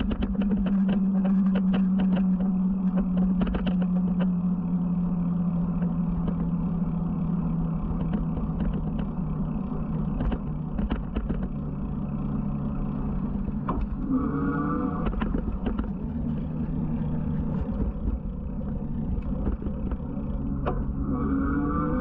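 Electric bike's motor whining steadily, its pitch slowly sinking as the bike eases off, then rising twice, about 14 s and 21 s in, as it speeds up again. Low rumble of wind on the microphone and frequent short clicks and knocks from the ride run underneath.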